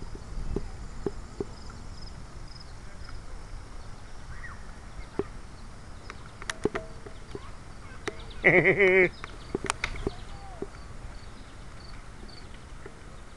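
Wooden bicycle rolling over pavement: a steady low rumble with scattered clicks and knocks from the bike. About eight and a half seconds in, a short, loud, wavering tone sounds for under a second.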